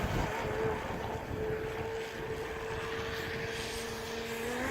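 Pro Boat UL-19 RC outrigger hydroplane's brushless electric motor whining steadily out on the water. Its pitch rises near the end as a second, lower tone joins in.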